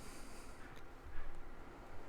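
Cardstock being handled on a work surface: a brief papery slide at the start, then a soft knock a little over a second in.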